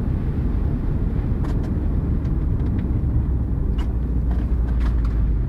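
Car running along a snow-covered road, heard from inside the cabin: a steady low rumble of engine and tyres, with a few faint ticks.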